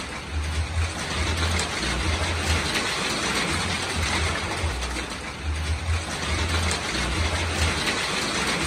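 Steady rain falling, an even hiss, with wind gusting on the microphone as an uneven low rumble.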